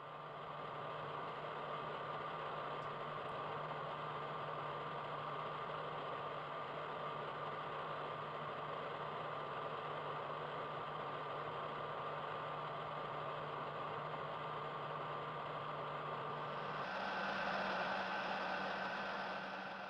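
Steady machine hum of a mainframe computer room: cooling fans and equipment whirring, with a low steady drone and a thin higher whine. About 17 seconds in it changes abruptly to a slightly louder hum with different steady tones.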